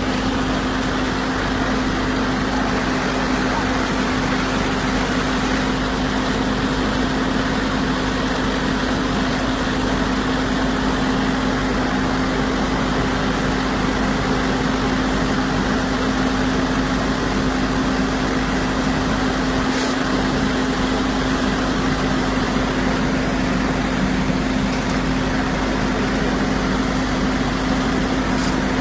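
Stationary baler-wrapper machine running steadily: a constant mechanical hum with one strong, unchanging pitch.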